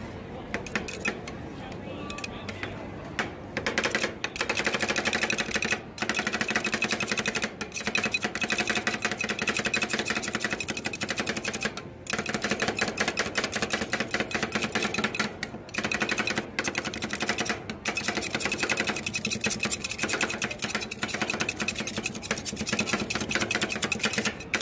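Two metal spatulas rapidly chopping and scraping ice cream mix on the steel cold plate of a rolled ice cream machine: a fast metallic clatter, sparser for the first few seconds, then almost continuous with a few brief pauses. Voices murmur underneath.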